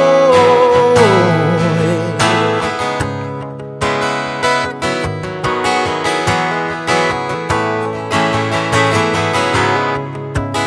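Acoustic guitar strummed in a steady rhythm, with the tail of a held sung note falling away in the first second or so. The strumming thins out briefly before a strong strum about four seconds in brings it back.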